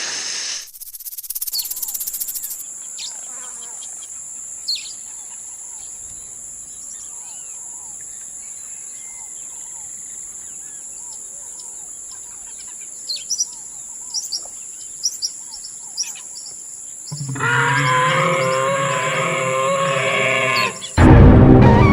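Outdoor ambience of a steady, high insect drone with scattered short bird chirps. A brief hiss comes at the start, and music comes in about seventeen seconds in.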